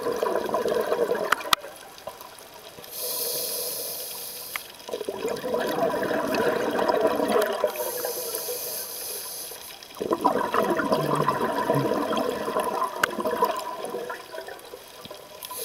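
Scuba regulator breathing heard underwater: a short hissing inhale alternates with a long bubbling exhale, in a cycle of about five seconds.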